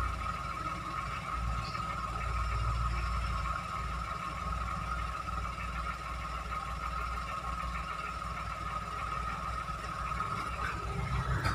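Toyota Agya small car's engine running steadily with a low rumble and a constant whine.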